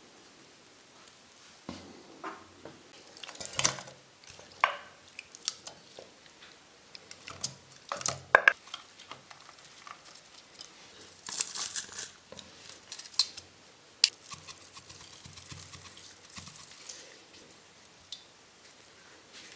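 Kitchen handling sounds: scattered clicks and knocks of ingredients and utensils against a stainless steel food-chopper bowl, with a short spell of rustling about eleven seconds in.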